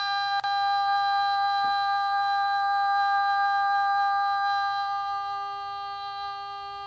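ChatGPT voice mode's synthesized voice holding one long, high, buzzy-toned note, wavering slightly at first and then steady, fading somewhat in the last two seconds as a lower tone joins in.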